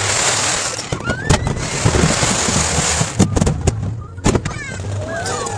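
Aerial fireworks: two long stretches of dense crackling, then a few sharp bangs after the middle.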